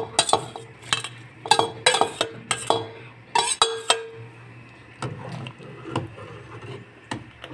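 Steel ladle knocking and scraping against a steel bowl and cooking pot while shredded chicken is tipped into boiling soup: a quick run of sharp metal clinks with a short ring. After about four seconds it gives way to a few softer taps as the soup is stirred.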